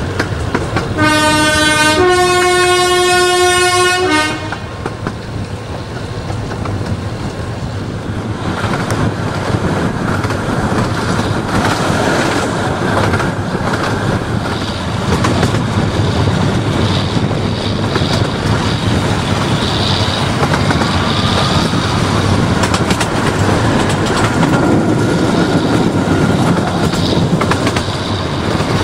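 A Romney, Hythe & Dymchurch Railway locomotive whistle sounds two blasts about a second in, the second slightly higher and about two seconds long, heard from a coach of the moving train. After that the train runs on with the wheels clattering over the 15-inch gauge track, and the running noise grows louder from about eight seconds in.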